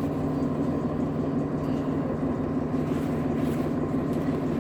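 Nova Bus LFS city bus engine and drivetrain running, heard from inside the cabin: a steady low hum with a fainter higher tone above it.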